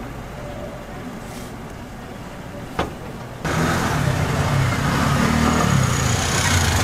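A motor vehicle's engine running close by, over general street noise; it becomes suddenly louder about three and a half seconds in, just after a single sharp click.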